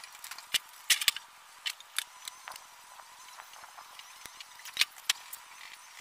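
Irregular sharp clicks and taps as a thin 0.4 mm plain sheet is handled and flexed against a steel cabinet frame.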